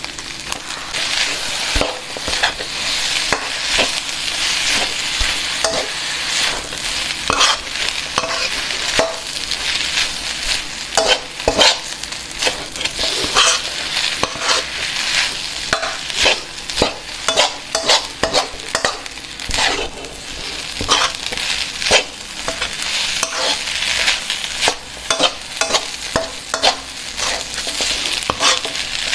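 Fried rice sizzling in a steel wok while a metal spatula stirs and tosses it, with frequent irregular clacks and scrapes of the spatula against the pan.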